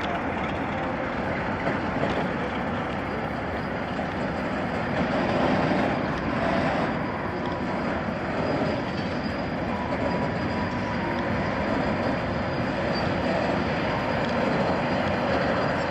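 A train running along the track, a steady rumble with faint thin high whines over it.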